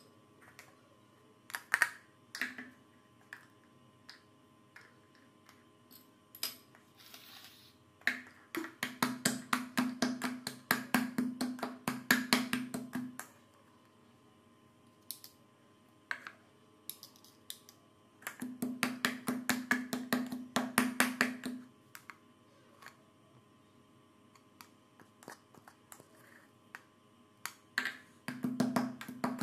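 Garlic cloves being pounded with a pestle in a small plastic cup: three bursts of rapid, hollow knocking, with quiet pauses between. A few single knife clicks against a glass bowl come in the first seconds.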